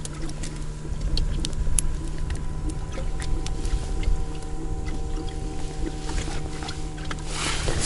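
A boat motor hums steadily under a low rumble of wind on the microphone, with small scattered metallic clicks as treble hooks are clipped onto a large soft swimbait.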